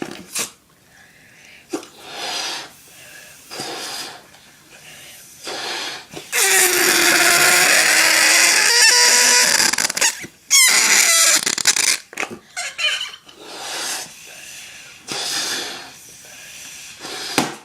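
Rubber balloon squealing as air is let out through its stretched neck, in a series of squeaky, wavering bursts. The longest runs for about four seconds near the middle, followed by shorter squeals.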